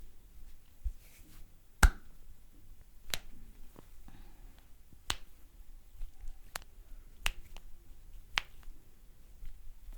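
A string of sharp snaps made with the hands during a head massage, about six clear ones at uneven gaps of one to two seconds. The loudest comes about two seconds in.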